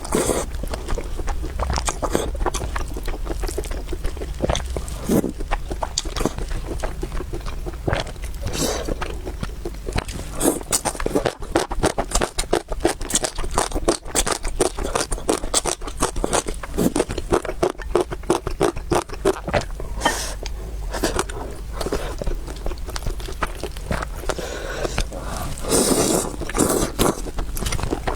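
Close-miked eating sounds: chewing and biting with many small wet clicks. A dense run of rapid clicks comes in the middle.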